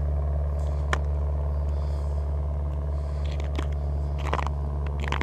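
Engine idling steadily nearby: an even low hum that holds one pitch throughout, with a sharp click about a second in and a few light ticks later.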